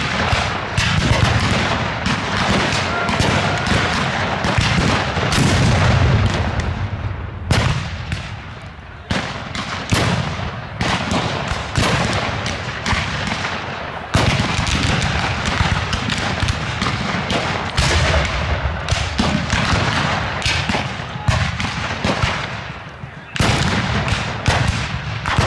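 Black-powder muskets firing blanks in a re-enacted Civil War battle: many overlapping shots in a near-continuous crackle, broken by a few brief lulls.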